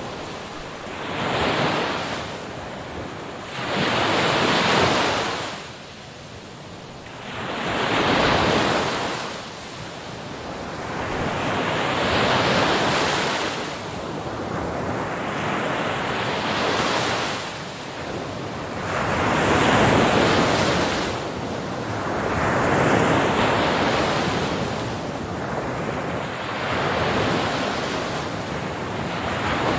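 Ocean waves breaking and washing in, the noise swelling and ebbing in slow surges about every three to four seconds.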